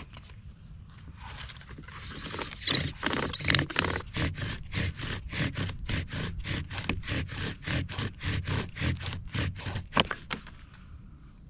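Bow drill: the wooden spindle grinding in the hearth board as the bow is sawn quickly back and forth, about three strokes a second, starting a second or so in and stopping about ten seconds in. This is the hard, fast drilling that works up an ember.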